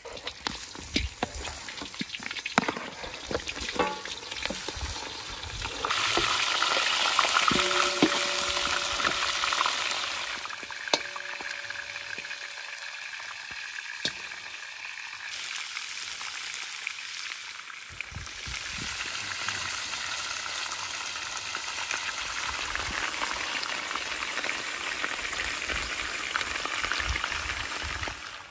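Lamb ribs sizzling as they fry in hot fat in a large metal cauldron, with clicks and scrapes as the pieces are dropped in and turned with a metal skimmer. The sizzle swells about six seconds in, eases off, then rises again past the middle.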